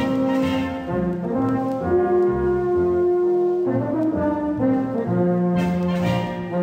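Background music: brass instruments playing a melody of held notes over chords, the notes changing every half second to a second.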